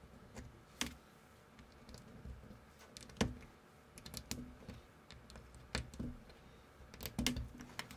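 Small plastic building bricks clicking as they are handled and pressed together by hand. The sharp clicks come irregularly, the loudest about three seconds in and a quick cluster near the end.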